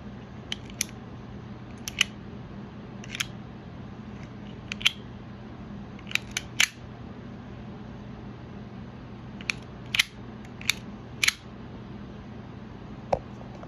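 Toughbuilt scraper utility knife's flip mechanism clicking as its head is worked again and again: about a dozen sharp clicks at irregular intervals, some in quick pairs or threes. The mechanism is not reliable, sometimes flipping and sometimes not, which the owner suspects is a defect.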